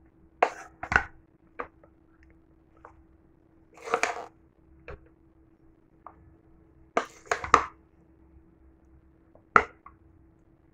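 A serving spoon knocking and scraping against a cooking pot and a plate while rice pulao is dished out: scattered separate clicks and taps, with a longer scrape about four seconds in and a quick run of taps about seven seconds in.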